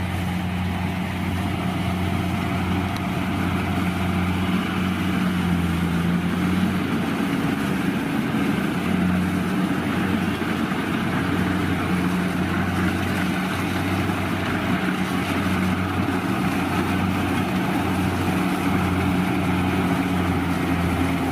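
Rice combine harvester running steadily: a low engine hum under a constant rush of machinery noise.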